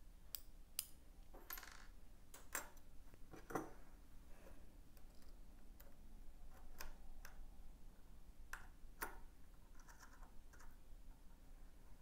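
Small metal screws clicking and clinking against a metal clamping hub and bracket as they are fitted and screwed in by hand. Faint, scattered clicks at irregular times.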